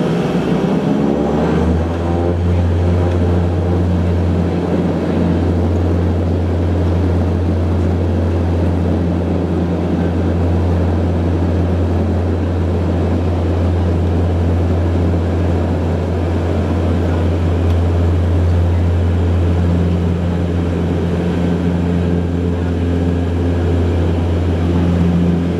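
Propellers and turboprop engines of an Embraer EMB-120 Brasilia heard from inside the cabin, rising in pitch to takeoff power over the first couple of seconds, then a loud, steady low propeller drone through the takeoff roll.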